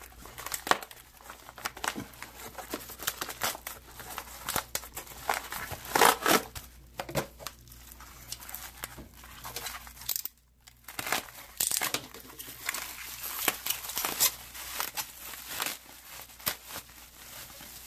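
A padded paper mailer being torn open by hand, then the plastic bubble wrap around a phone being crinkled and unwrapped: a dense run of irregular crackles and rustles, with a brief pause a little past halfway.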